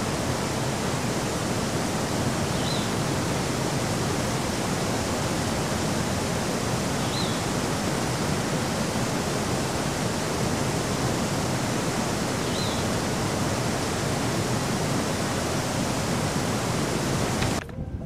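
Sufrudzhinsky waterfall, a large glacier-fed fall, sending up a steady, even rush of falling water, with three faint high chirps over it; the sound cuts off abruptly near the end.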